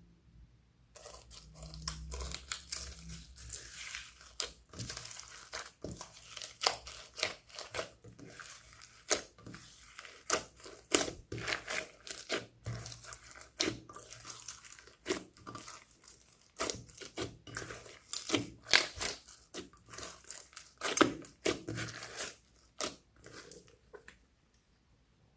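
Slime being kneaded and squeezed by hand, giving a dense run of sticky crackles and pops. It starts about a second in and stops shortly before the end.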